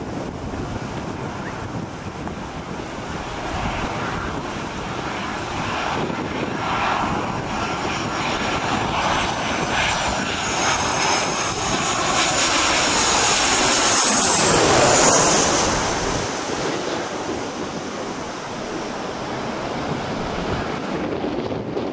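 Boeing 737 jet airliner on low final approach passing close overhead: the engine noise builds to a peak about fifteen seconds in, with a high whine that drops slightly in pitch as it passes, then falls away suddenly.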